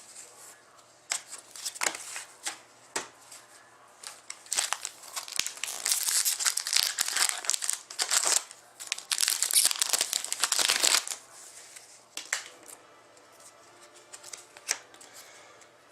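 A hockey card pack's wrapper is torn open and crinkled by hand. The crinkling is densest and loudest in the middle stretch, with scattered light ticks of handling before and after.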